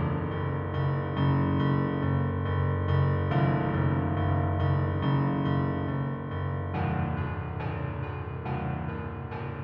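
Film score music with a keyboard playing sustained chords that change about every three and a half seconds.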